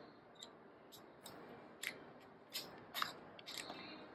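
Faint, scattered clicks and taps of metal tools being handled: a valve guide trim tool and an electric drill being picked up and set up against the cylinder head.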